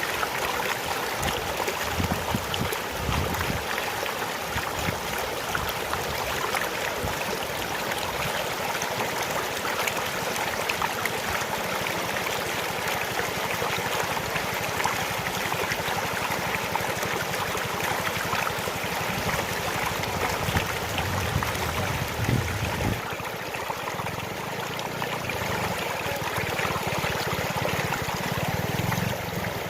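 Flash floodwater flowing in a strong current, a steady rushing of water.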